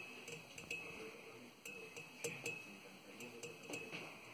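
Light, irregular clicking taps of fingers and a metal finger ring on a metal bar.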